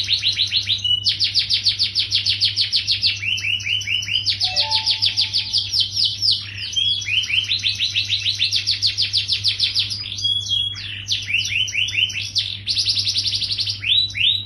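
Yellow domestic canary singing in continuous fast trills: rapid runs of about ten repeated downward-sweeping notes a second, switching to a new note type every second or two. A steady low hum runs underneath.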